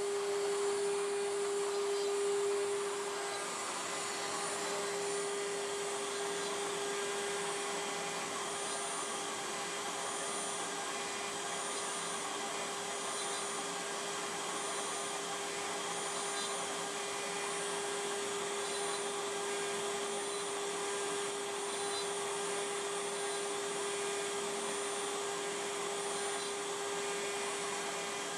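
Wood router spindle on a DIY CNC router running steadily with a constant whine while it carves a relief into a wooden board with a 1/8 inch bit, over a steady hiss of air through the dust-collection hose.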